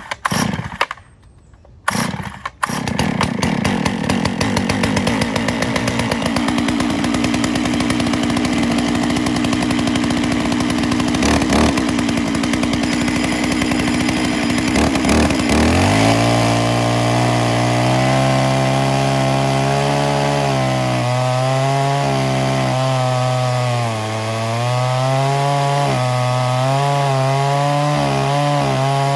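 Holzfforma G660 92 cc two-stroke chainsaw on a chainsaw mill, firing in a few short bursts before catching about two and a half seconds in, then running at high revs. About halfway through, its note drops and wavers up and down as the 36-inch bar and ripping chain work through red oak under load.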